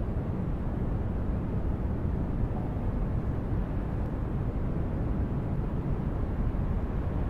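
A steady low rumble of noise with no clear tone or rhythm.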